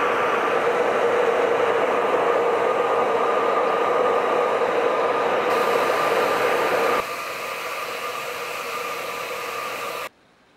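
Hair dryer blowing steadily while a soaked cat's fur is dried. It becomes quieter about seven seconds in and cuts off suddenly near the end.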